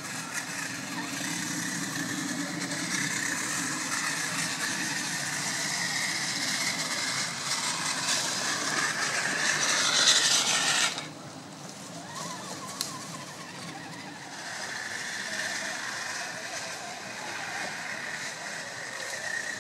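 Small electric RC rock crawlers driving over a dirt track, their motors and gears whining. The sound grows louder, then drops suddenly about eleven seconds in and runs on more quietly.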